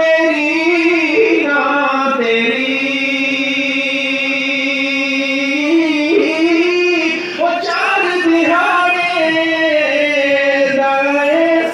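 A man singing a Punjabi Sufi kalam solo and unaccompanied, drawing out long wordless notes with a wavering vibrato. The longest note is held for about four seconds.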